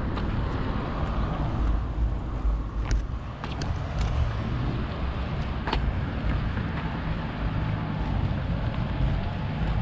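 Steady low rumble of wind buffeting the microphone, mixed with road noise while riding a bicycle. A few sharp clicks come between about three and six seconds in.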